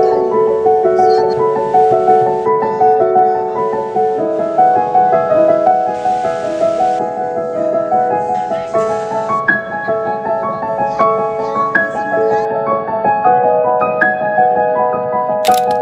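Background piano music: a slow melody of held notes changing step by step. A sharp camera-shutter click comes right at the end.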